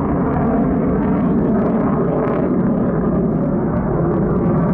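F-35 fighter jet's single turbofan engine heard from the ground as a loud, steady rushing noise while the jet maneuvers overhead.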